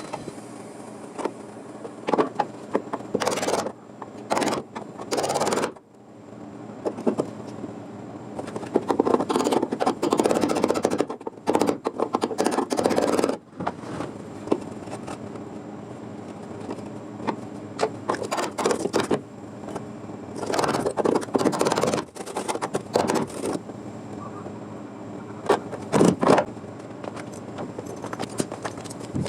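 Metalworking on a car's sheet-steel body: repeated scraping bursts, each about half a second to two seconds long, with short pauses between, as rust is worked off and panel steel is shaped.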